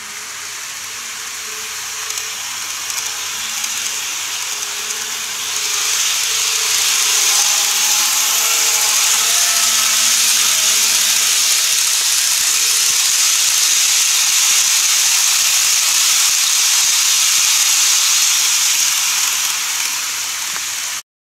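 N-gauge model trains (GreenMax Tobu 30000 and 50050 series) running on the layout's track, giving a steady rushing hiss that grows louder about six seconds in as they pass close by. Faint humming tones sit underneath.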